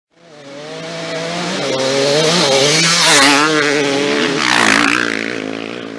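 Motorcycle engine revving, its pitch wavering up and down. The sound swells in over the first second or two, with hissing bursts about halfway through and again a little later, then fades out at the end.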